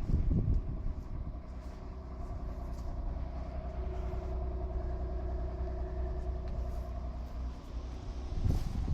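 Ford Probe GT's 2.5-litre V6 engine idling steadily. A louder rush of noise cuts in near the end.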